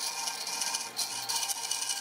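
A hand tool working wood with repeated scraping strokes, like a rasp or file rubbing on hardwood.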